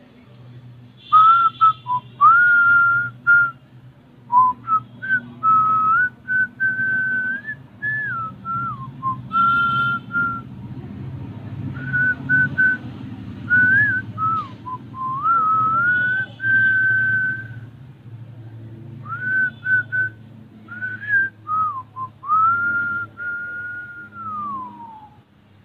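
A person whistling a slow tune in several phrases, with held notes, slides between them and short pauses between phrases, over a low steady hum.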